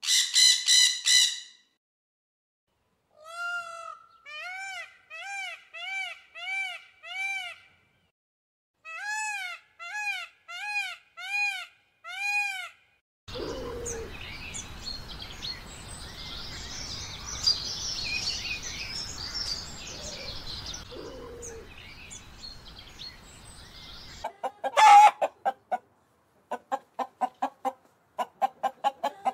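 A run of bird calls. First come a few loud harsh squawks, then two series of clear rising-and-falling calls, about two a second. After that comes about ten seconds of background noise with small birds chirping, and near the end rapid pulsed calls, several a second.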